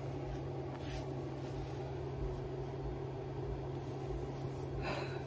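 Steady low hum and hiss of background noise, with faint rustling and tapping from a cardboard knife tube being handled.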